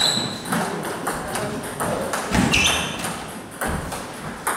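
Table tennis rally: the ball clicking sharply off rubber bats and bouncing on the DONIC table, many quick knocks, with a few short high squeaks, one rising about halfway through.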